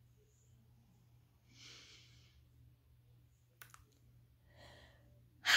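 A woman breathing out in soft sighs, with a small sharp click about three and a half seconds in and a short, louder breath out at the very end.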